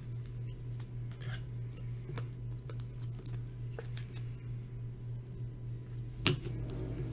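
Faint clicks and rustles of a trading card being handled in a clear plastic sleeve, with one sharper tap about six seconds in, over a steady low hum.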